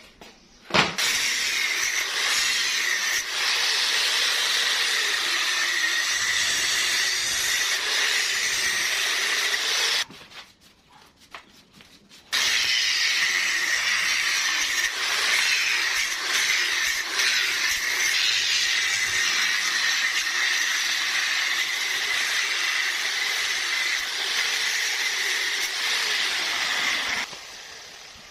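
Angle grinder cutting through a black plastic crate, running with a steady high whine in two long cuts, with a break of about two seconds about ten seconds in.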